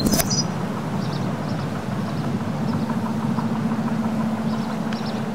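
A low, steady rumble with a steady hum that comes in about halfway through, and a few faint high chirps.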